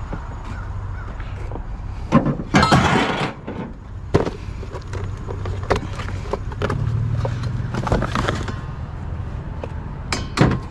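Metal being struck and handled: sharp clanks and knocks, a cluster of loud ones with a short rasping burst about two to three seconds in, scattered single knocks after, and another pair of loud hits near the end.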